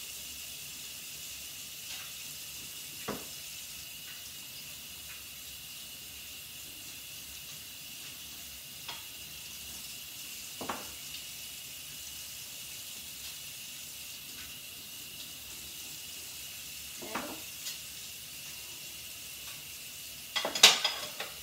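Steady hiss of water running at a kitchen sink during dishwashing, with a few single clinks of dishes and a louder clatter of dishes near the end.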